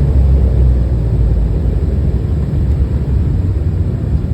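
Steady low rumble of a jet airliner in flight, engines and airflow heard from inside the passenger cabin.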